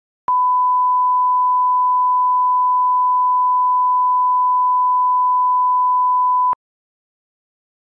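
Steady 1 kHz reference test tone of the bars-and-tone kind: one pure, unwavering beep that starts with a click just after the start, holds for about six seconds and cuts off abruptly with a click.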